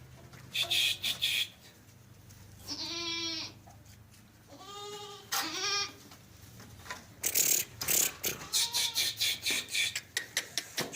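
Sojat goats bleating: two long, wavering bleats about three and five seconds in, then a shorter one, with a faint call later. Around them come quick, dry clicking and scraping noises that run on through the second half.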